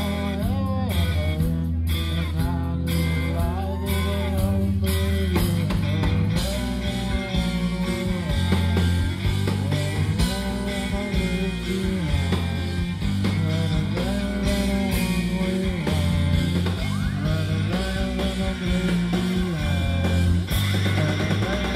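Live rock band playing through a big PA, heard from the crowd: electric guitar and drums over a heavy bass line.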